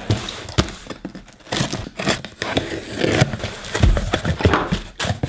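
A knife slitting the packing tape on a cardboard box and the cardboard flaps being pulled open: a run of irregular scrapes, rips and crackles.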